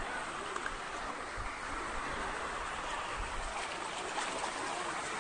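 Floodwater rushing along a street: a steady, even rush of moving water.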